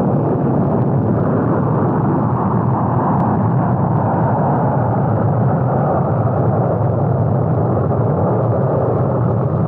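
Liquid-fuel rocket engine firing: a loud, steady, dense rush of low noise with no breaks.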